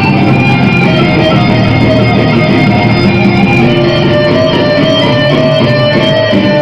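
Live gothic metal band playing a song, with a bowed violin line over guitars, loud and continuous.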